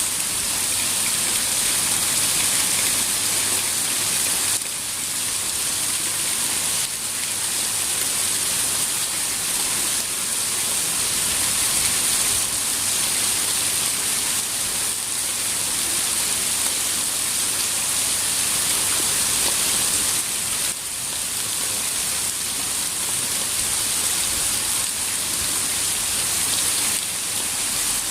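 Rain falling steadily, an even hiss with no distinct drops or thunder standing out.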